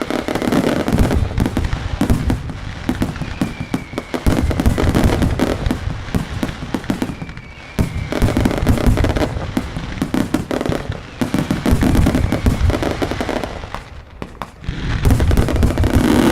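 Mascletà firecrackers: a dense, continuous barrage of rapid bangs, with a few faint whistles falling in pitch. The barrage eases briefly about halfway through and again near the end, then comes back louder.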